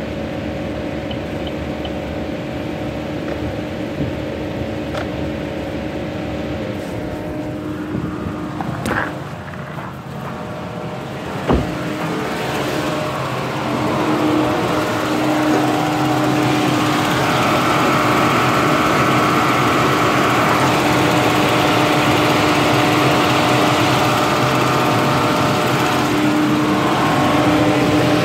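A 2015 Chevy Cruze running with a steady hum. A sharp click comes about eleven seconds in, and from a couple of seconds later the sound grows louder and fuller, with a steady drone.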